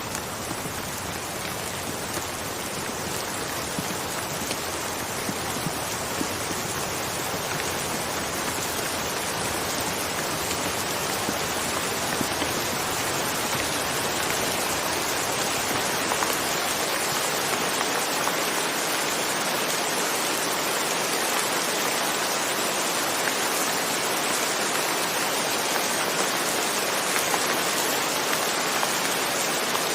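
Steady rain falling, a dense hiss of drops with faint individual ticks, growing slightly louder over the first half.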